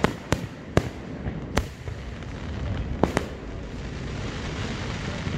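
Fireworks display: about six sharp shell bursts in the first three and a half seconds, with a steady hiss building behind them through the second half.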